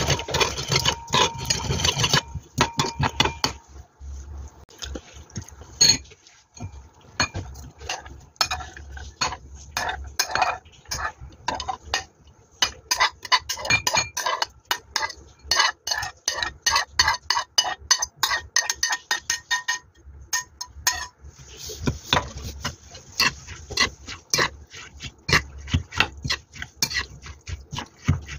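Metal spoon stirring a soy-sauce seasoning in a ceramic bowl, clinking and scraping against the sides in quick, irregular taps. Partway through, chopped vegetables are tipped from a plate into the bowl and stirred in, with more clinking.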